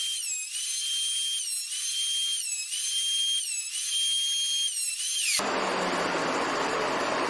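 Feed-through wood-surfacing machine running empty with a high motor whine that dips about once a second. About five seconds in, a board feeds in and a harsh rushing noise of the cut takes over.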